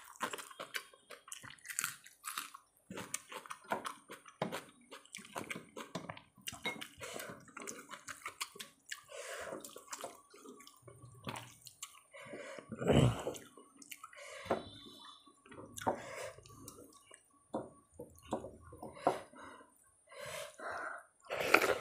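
Fingers mixing rice into a runny curry on a metal plate, a string of irregular wet squelches and small clicks, with chewing and lip smacks between; one louder wet sound about halfway through.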